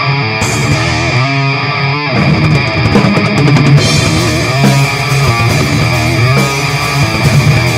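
Basement demo of an electric guitar and drum kit playing heavy rock, recorded to cassette. The guitar riff runs on while the drums come in about two seconds in, with the cymbals filling out from about four seconds.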